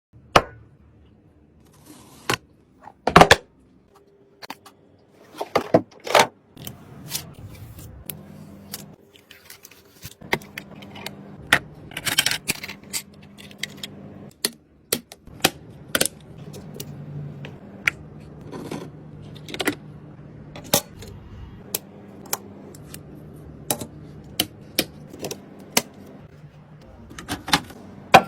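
Irregular clicks, taps and light metallic clinks of hard computer parts and screws being handled and fitted during a PC assembly, over a faint low hum.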